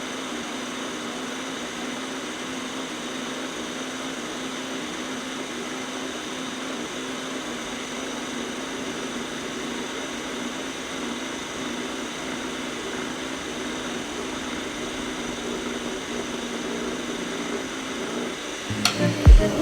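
Eufy RoboVac 30C robot vacuum running, a steady motor and fan drone with a constant hum.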